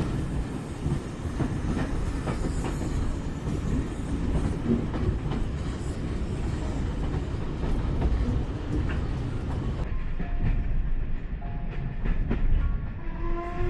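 Steam-hauled heritage train running on the line: a steady low rumble with wheel clicks over the rail joints. About a second before the end, the steam whistle starts to sound in a steady held tone.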